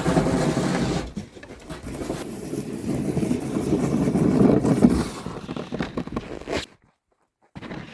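Hand tool scraping over and over across the ground while clearing a yard. The scraping cuts off suddenly near the end, then starts again more quietly.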